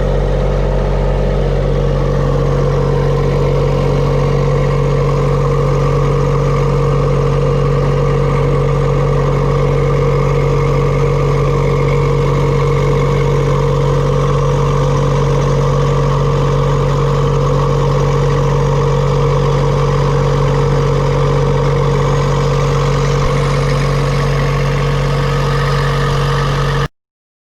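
Bobcat 553 skid steer's diesel engine running steadily with an even hum, cutting off abruptly near the end.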